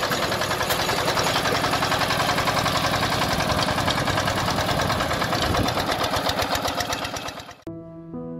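Walk-behind power tiller engine running steadily with a rapid, even beat. It cuts off suddenly near the end, and soft piano music comes in.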